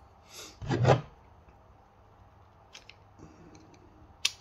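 Small plastic airsoft hop-up parts handled and pressed together by hand: a short rustling burst about a second in, a few faint clicks, then a sharp click near the end as a part snaps onto the hop-up unit.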